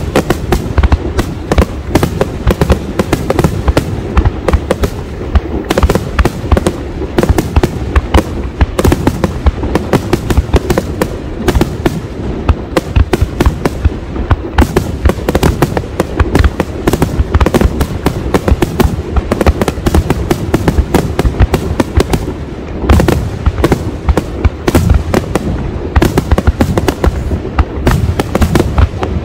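Aerial fireworks going off in a rapid-fire barrage: many sharp bursts a second, overlapping one another without a break.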